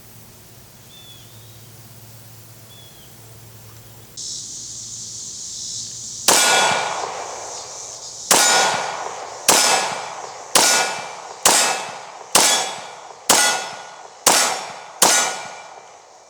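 Nine shots from a .40 S&W Glock 22 pistol, the first about six seconds in and then about one a second, each followed by the metallic ring of a steel target being hit.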